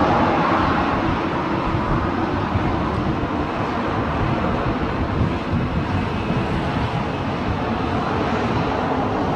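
Boeing 737 airliner's twin jet engines running at low thrust as it turns and lines up on the runway: a steady, even jet rumble, slightly stronger in the first second.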